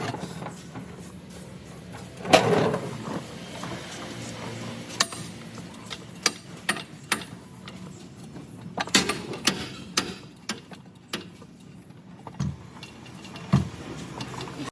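Metal tools and parts clanking during clutch work on a car: irregular sharp clicks and knocks, the loudest about two seconds in and followed by a short ring, over a steady low hum.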